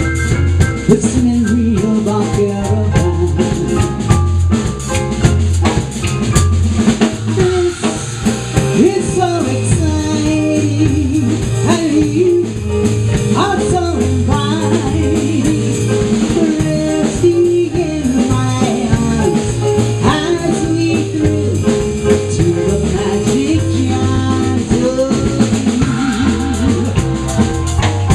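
Live jazz combo playing: electric keyboard, electric bass guitar and drum kit with rimshots, and a woman singing into a microphone.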